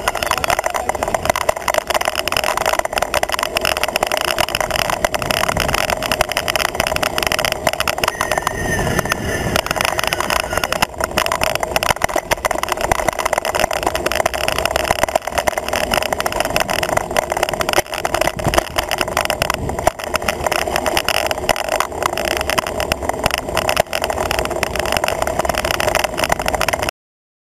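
Wind rushing over a handlebar-mounted camera, with tyre and road noise from a road bike riding at speed: a steady rough noise full of small rattling knocks from road vibration. It cuts off suddenly near the end.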